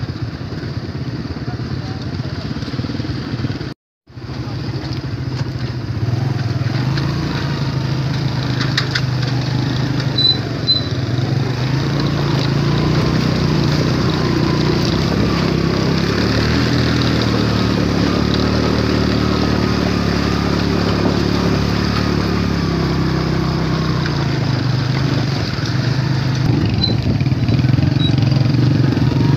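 Small motorcycle engine running, its pitch stepping up and down as it rides. The sound cuts out briefly about four seconds in.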